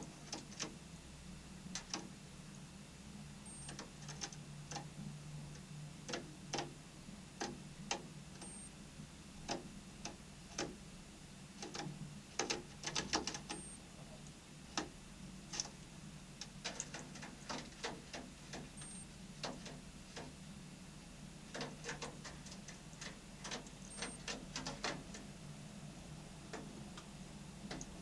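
Irregular sharp taps and clicks, some single and some in quick runs, over a faint steady low hum.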